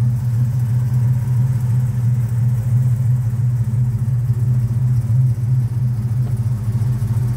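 Ford Capri 2.8 Injection's V6 engine idling steadily with a constant low hum.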